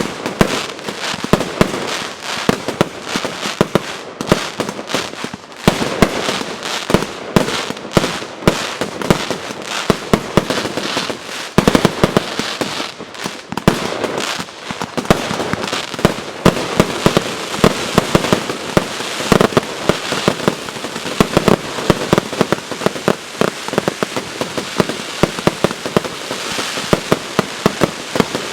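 Consumer fireworks battery (cake) from the J-Fireworks JF5441 'Black Out Eight' assortment firing: a dense, continuous crackle with many sharp bangs, several a second.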